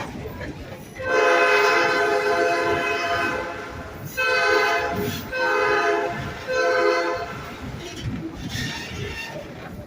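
Tourist train's locomotive sounding its horn: one long blast about a second in, then three short blasts, over the rumble of the cars on the rails.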